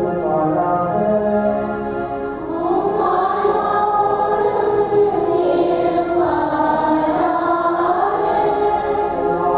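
Liturgical singing at a Catholic Mass: a slow chanted melody with long held notes that rise and fall gently.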